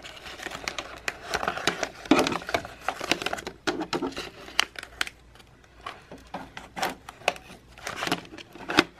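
A jammed sheet of label paper being pulled and worked loose from an inkjet printer's feed rollers: paper crinkling and rustling, with irregular sharp clicks and knocks.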